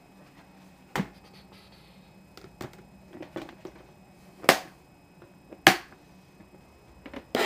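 Sharp clicks and knocks of plastic storage tubs and their lids being handled, about five in all, the loudest two about halfway through, a second apart.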